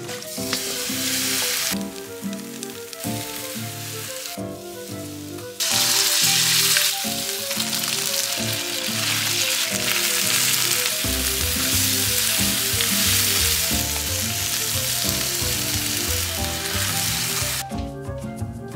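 Chicken and broccoli stir-frying in a wok, a steady sizzle that briefly thins out twice in the first few seconds and is loudest from about six seconds in, with background music throughout.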